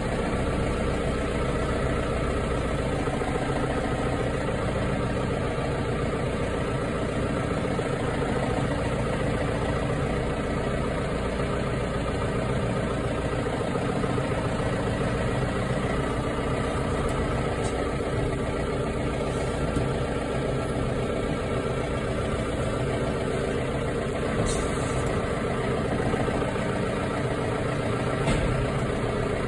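Tractor engine running steadily at an even, low speed, heard close from the operator's seat while the tractor creeps forward carrying a round bale on its front loader.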